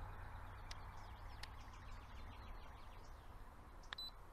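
Faint outdoor ambience with a few faint bird chirps. Near the end comes one sharp click, followed at once by a short, high electronic beep.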